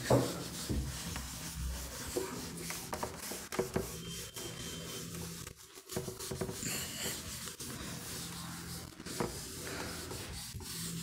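A whiteboard duster wiping marker writing off a whiteboard in repeated rubbing strokes, with a brief pause about halfway through.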